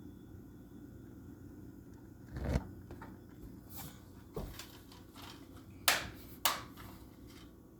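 Plastic DVD case and disc being handled: a dull knock about two and a half seconds in, then a few light clicks and two sharp plastic clicks about half a second apart around six seconds in.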